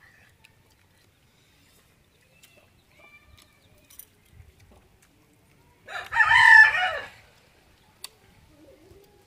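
A rooster crows once, a single call of just over a second about two-thirds of the way through.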